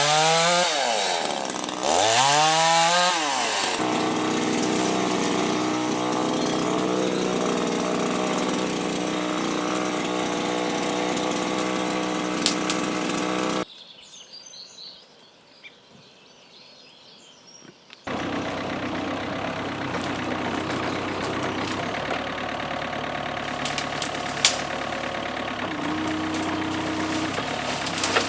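Petrol chainsaw revved twice, its pitch rising and falling, then held at a steady speed cutting back tree branches. It stops suddenly about halfway in, and after a few seconds of quiet a steady engine sound starts again.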